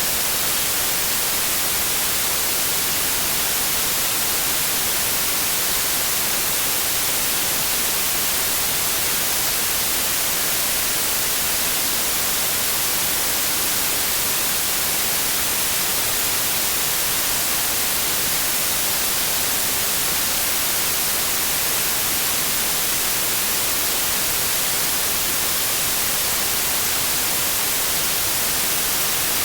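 Synthetic white noise: a steady, unvarying hiss with a flat spectrum that sounds brightest in the highs.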